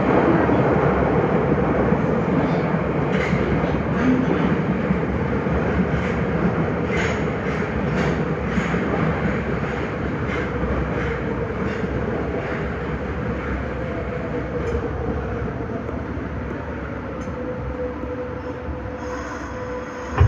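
Nagoya Higashiyama Line 5050-series subway train running through the tunnel: a steady rumble of wheels on rail with a held whining tone and a run of rail-joint clicks in the first half. The sound slowly grows quieter.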